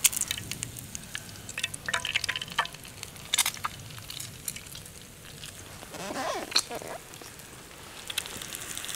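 A duck egg frying in hot oil in a frying pan, sizzling with many sharp pops and spits that thin out about halfway through. About six seconds in comes a short scraping sound as the pan is set onto the campfire grill.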